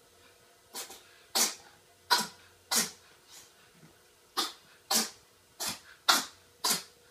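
A cat sneezing about nine times in quick succession, roughly one sneeze every two-thirds of a second, with a short break in the middle of the run.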